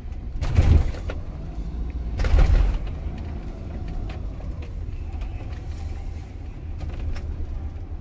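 Motorhome's engine running at low speed, heard from inside the cab as it drives slowly into a ferry, with two louder rumbling bumps about half a second and two seconds in.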